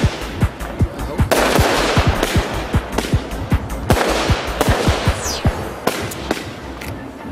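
Consumer fireworks firing in a rapid, irregular volley: many sharp bangs with thumps, over continuous crackling, and one short falling whistle about five seconds in.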